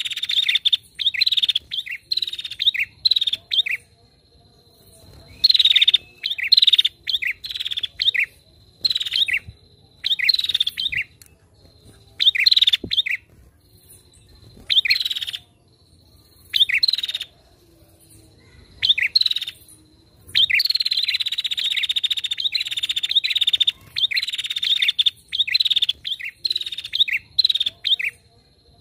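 Female prinia (prenjak) calling in phrases of rapid, high, repeated chirps, with short pauses between them and one longer unbroken run near the end. A faint steady high whine sits beneath the gaps.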